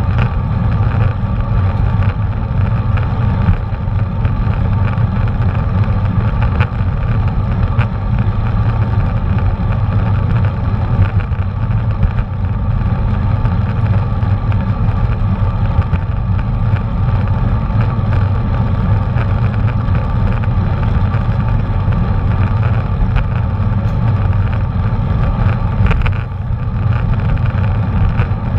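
Steady wind rumble and rolling road noise on a bicycle-mounted action camera's microphone while riding.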